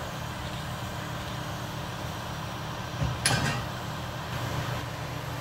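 Demag mobile crane's diesel engine running steadily while it holds the suspended steam locomotive, with one sharp knock about three seconds in.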